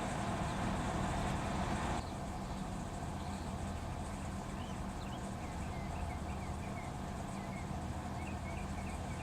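Steady rumble of distant road traffic that cuts off abruptly about two seconds in, giving way to a quieter outdoor ambience. A small bird chirps repeatedly over it in short high notes.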